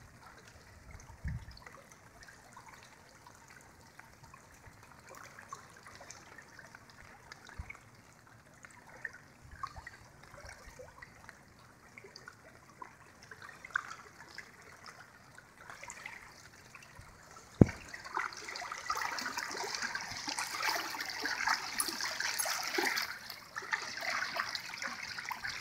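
Floodwater trickling and lapping around someone wading through it, with a single sharp knock about two-thirds of the way in. After the knock the water noise grows louder and denser, with a fine patter, for the last several seconds.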